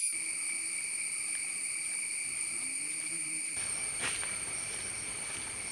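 Insects droning steadily outdoors, a continuous high-pitched buzz with a faint tap about four seconds in.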